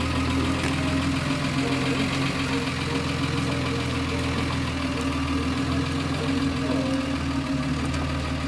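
Engine of the hearse idling steadily close by, a low even hum that does not change.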